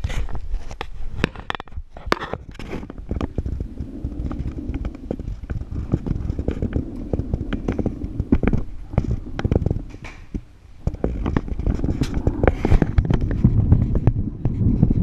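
Handling noise from a body-worn camera as its wearer walks: irregular clicks, knocks and clothing rubbing on the microphone, with a low rumble building near the end.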